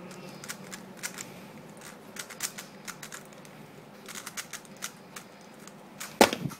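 3x3 plastic speedcube being turned one-handed: quick, irregular clicks of the layers snapping round, with one much louder knock near the end.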